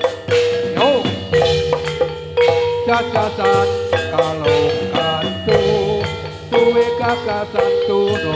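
Javanese gamelan-style accompaniment for a gedruk dance: metallic mallet-struck instruments playing a steady, repeating pattern over drum strokes, with a held melody line.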